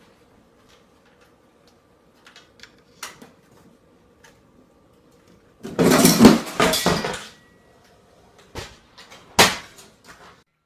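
A ceiling fan failing: a faint steady hum with scattered light clicks, then a clattering crash lasting over a second about six seconds in, and a single sharp bang near the end.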